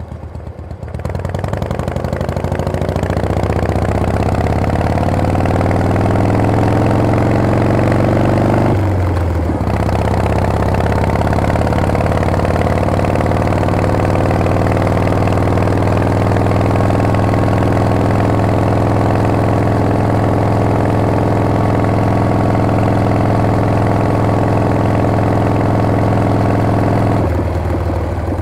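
Harley-Davidson Panhead V-twin engine of a chopper pulling under way. Its pitch climbs steadily, drops with a gear change about nine seconds in, then climbs more slowly until another shift near the end.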